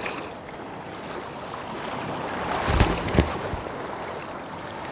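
Ocean surf washing steadily around a wading angler, with wind buffeting the microphone; two low thumps come close together about three seconds in.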